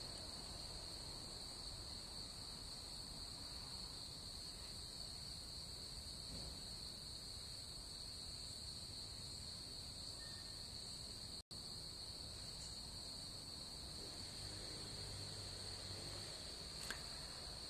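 Faint, steady high-pitched chirring of insects, with a momentary dropout about eleven seconds in.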